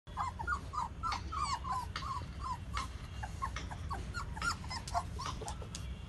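A litter of puppies whining and yelping, many short high calls in quick succession, several a second.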